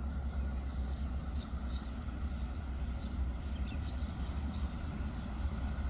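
Distant NSW 48 class diesel locomotives running with a steady low rumble at the head of a stationary grain train. Birds chirp briefly over it.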